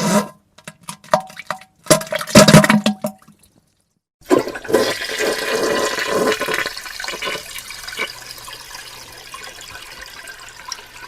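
A few short, wet, sputtering bursts of diarrhea and farting sounds in the first three seconds, the loudest about two and a half seconds in. After a second of silence, a toilet flushes, its rush of water slowly fading.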